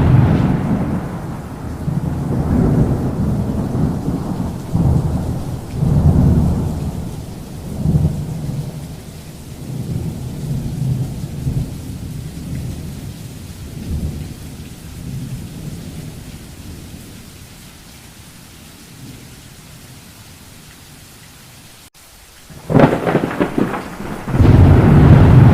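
Thunderstorm: a loud peal of thunder at the start rolls on in waves of low rumbling and slowly fades over about twenty seconds. Two sharp new thunderclaps break out near the end. Rain hisses faintly underneath.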